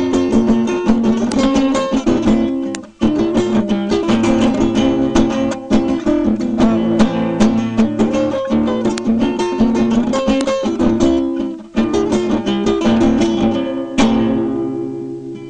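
Acoustic guitar playing a fast instrumental piece of quick plucked notes, with a strummed chord near the end that rings out and fades.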